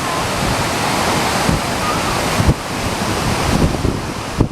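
Velo de Novia waterfall rushing, a loud, steady, even roar of falling water. Gusts of wind buffet the microphone underneath.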